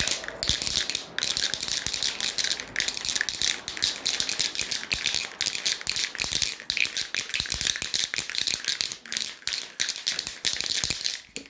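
Continuous dense rattling with a hissy edge, dropping out briefly a few times and stopping near the end.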